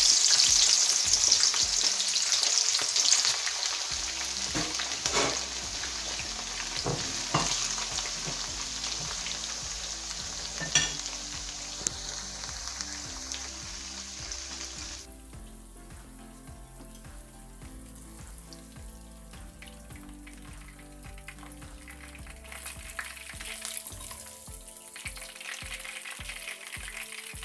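Chopped okra sizzling in hot oil in a nonstick wok, loudest at the start just after the pieces go in and growing quieter as they fry, with a few clinks of a spoon stirring.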